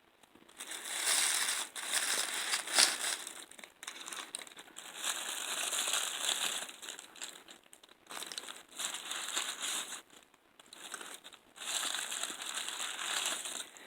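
Crinkly plastic wrapping of an LOL Surprise toy being handled and pulled open by hand, in several long stretches of crinkling with short pauses between.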